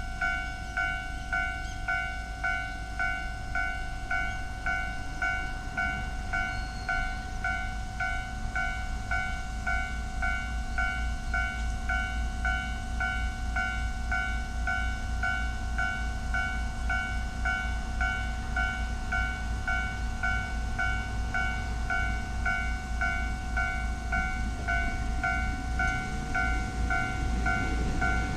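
Japanese level-crossing warning bell sounding its slow-tempo standard electronic ding, repeating steadily and evenly, with a low rumble underneath.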